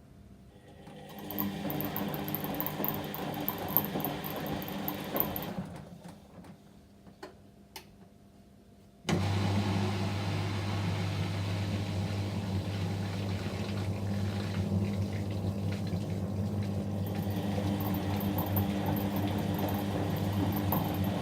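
Whirlpool washing machine on a 30° delicate cycle: the drum motor runs for a few seconds and stops, a few clicks follow, then about nine seconds in a steady low hum starts suddenly and keeps going.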